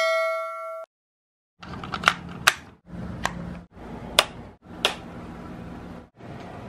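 A ringing chime fades out in the first second. Then a wall light switch clicks on about five times, sharp single clicks over a steady low room hum.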